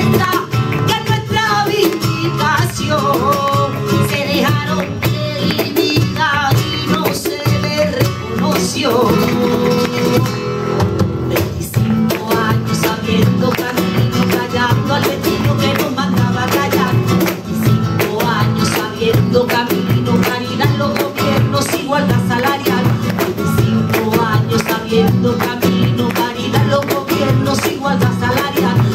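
Live flamenco-style song: a woman singing to a Spanish guitar, with a cajón. About ten seconds in the voice drops away, and the strummed guitar carries on.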